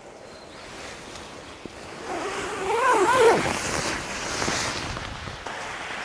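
A nylon tent's door zipper being pulled open, its rasp wavering in pitch as it is drawn unevenly, amid the rustle of tent fabric.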